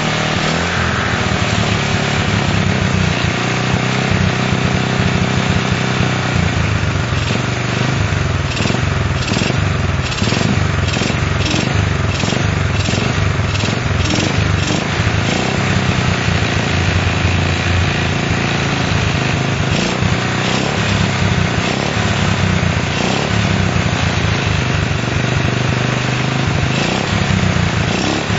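Honda CL70's small four-stroke single-cylinder engine running steadily on a knockoff aftermarket carburetor (75 fuel jet, 40 air jet) during a test of the new jetting. A few seconds of rhythmic pulsing come about a third of the way in.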